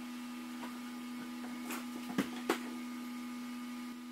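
A few light knocks of solid beech flooring planks being handled and set down on a plywood subfloor, two sharper ones a little past the middle, over a steady electrical hum.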